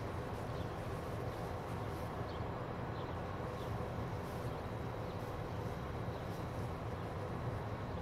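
Steady outdoor background: a low, even rumble with faint short high chirps of small birds scattered through it.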